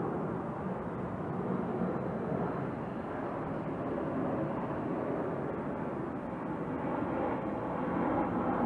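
Jet airliner flying overhead, a steady rushing engine noise that swells slightly near the end.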